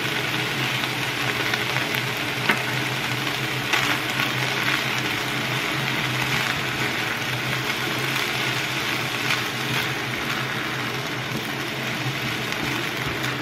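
Low-carb rice frying in a nonstick pan with a steady sizzle, stirred with a silicone spatula, with a few light scrapes. A low, steady hum runs underneath.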